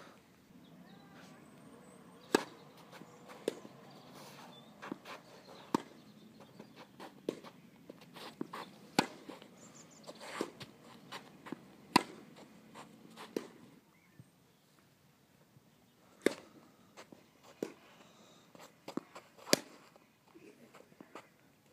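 Tennis rally: sharp pops of rackets striking a tennis ball and the ball bouncing on the court, roughly one every second, with a short lull about two-thirds of the way through.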